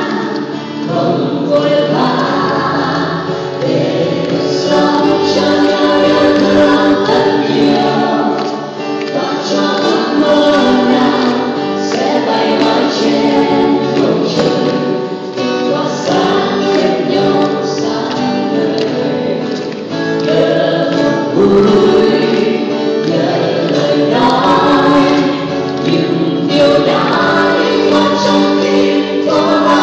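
A mixed group of male and female voices singing a Vietnamese song together in harmony, accompanied by acoustic guitars and a hand drum, performed live on stage.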